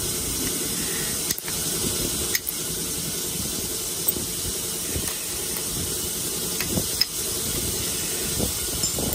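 A steady hiss throughout, with a few sharp clicks as a round hammerstone strikes and rubs the edge of a stone preform being knapped.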